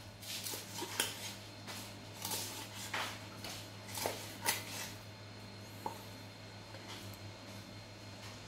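Large kitchen knife cutting raw fish into chunks on a round wooden chopping block: irregular knocks of the blade striking the wood, about one a second at first and fewer toward the end, over a faint steady low hum.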